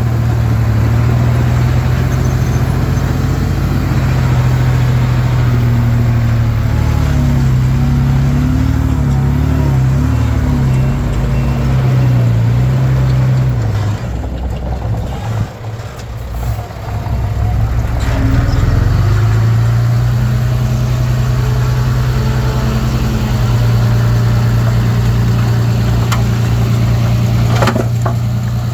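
Komatsu D31P bulldozer's diesel engine working, its note wavering with the load, easing back to a lower, quieter run about halfway through for a few seconds, then pulling up again. A couple of sharp knocks near the end.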